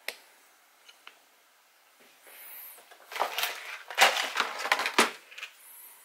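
Handling noise on a desk: a sharp click, two small ticks, then about three seconds of dense crackling and rustling, loudest in the middle.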